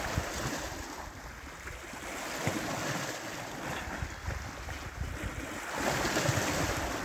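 Sea water washing and lapping, with wind buffeting the microphone in uneven low gusts; the wash swells louder about six seconds in.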